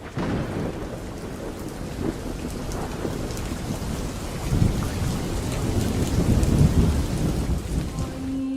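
Heavy rain falling with thunder rumbling, the deep rumble swelling about halfway through and peaking shortly after.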